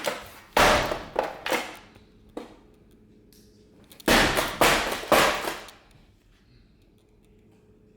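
Heavy shoes stomping on and crushing a plastic toy: a quick run of about three loud stomps with crunching about half a second in, then another run of three about four seconds in.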